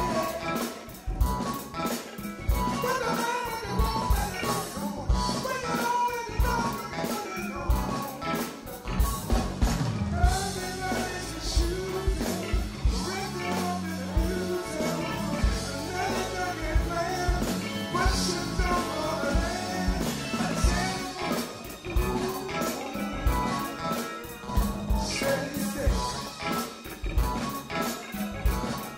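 Live band playing soul music, with a drum kit keeping a steady beat under bass and melodic instruments.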